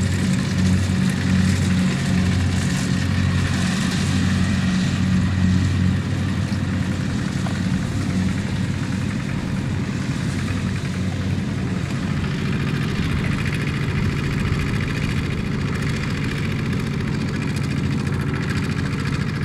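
Single-cylinder diesel engine of a two-wheel walking tractor running under load while it hauls a trailer of rice sacks through mud where it is stuck. Its note pulses unevenly for about the first six seconds, then runs steadier.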